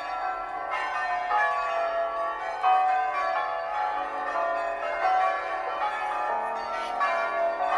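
Tower bells struck one after another in a slow tune, a new note about every second, each ringing on under the next.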